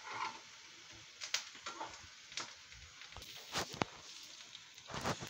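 Vadas shallow-frying in oil in a nonstick pan with a faint, steady sizzle, while a utensil clicks and scrapes against the pan several times as they are turned, the loudest knocks near the end.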